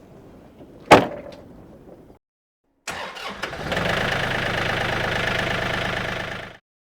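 A sharp knock about a second in. About two seconds later an engine starts and runs steadily, then cuts off suddenly.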